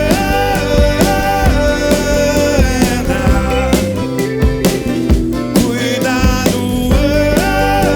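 Rock band playing live: regular drum hits and bass under a sustained, slightly bending lead melody line.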